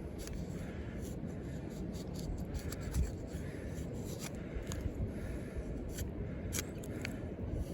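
A Lengren Dragon combat knife's thick Sleipner steel blade shaving curls off a wooden stick while carving a feather stick: a run of short, irregular scraping strokes.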